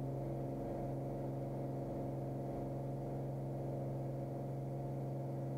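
Cirrus SR22's six-cylinder piston engine and propeller at full takeoff power during lift-off and initial climb, a steady, unchanging drone.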